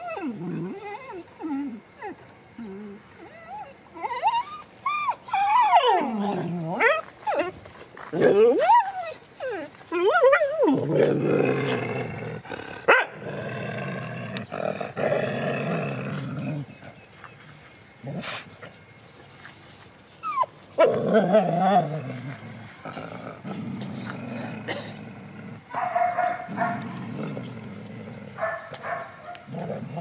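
Dogs growling and whining at each other in a tense standoff: pitched whines sweeping up and down in the first several seconds, then a long stretch of low growling, with more short whines and growls later on.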